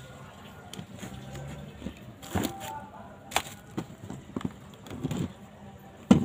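Small tools and parts being handled on a workbench: a scatter of short, light knocks and clicks, the sharpest near the end.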